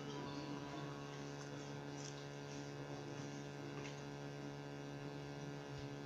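Steady electrical mains hum, with a few faint clicks.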